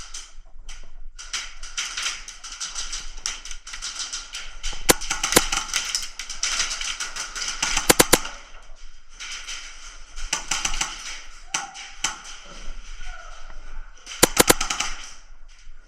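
Airsoft guns firing in rapid strings of shots, with a few sharper, louder cracks standing out about five, eight and fourteen seconds in.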